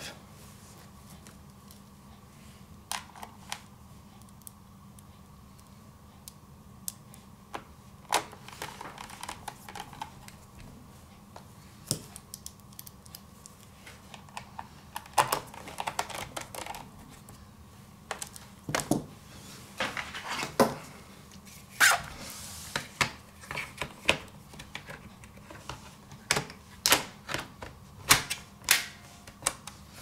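Scattered clicks and taps of a small screwdriver and hands on a laptop's plastic bottom cover as its screws are refitted. They come sparsely at first and much more often in the second half, over a faint steady hum.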